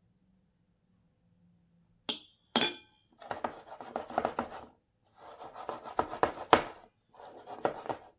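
A spoon clinks twice against a glass bowl as it is set down, then a metal springform cake pan is knocked and jiggled against a tabletop in three rattling bouts, settling the cream layer level.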